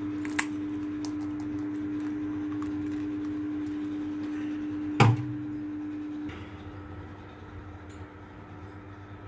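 A steady hum with a few light clicks as eggshells are handled over a bowl. There is one sharp knock about five seconds in, and soon after the hum changes to a lower, quieter rumble.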